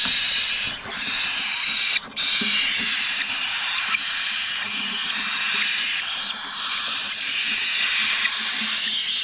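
Several baby cockatiel chicks giving their loud, hissing begging calls for food, near-continuous with a short break about two seconds in.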